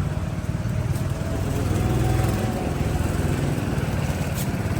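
Small go-kart engine running steadily.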